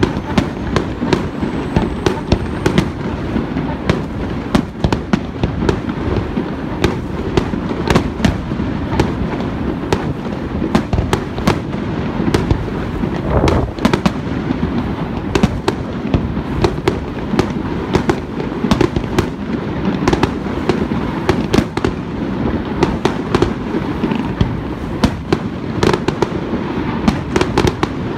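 Fireworks display: aerial shells bursting in quick succession, a dense run of sharp bangs, several a second, over a steady low rumble.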